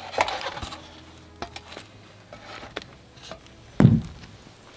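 Footsteps and light knocks on wooden roof boards, with one heavy thud about four seconds in as a foot comes down on a board.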